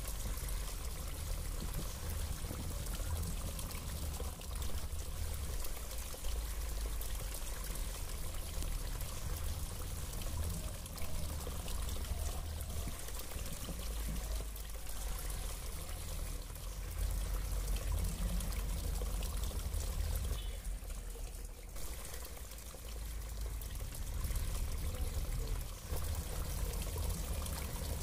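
Water spilling and trickling steadily down a small stepped rock waterfall into a garden fish pond.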